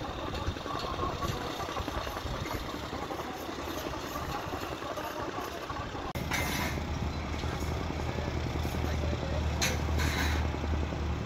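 Construction-site background noise with a heavy engine running; about six seconds in a steady low engine hum becomes louder. Faint voices can be heard.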